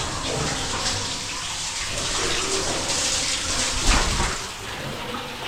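Cave waterfall, a steady rush of falling and splashing water, with a dull thump about four seconds in.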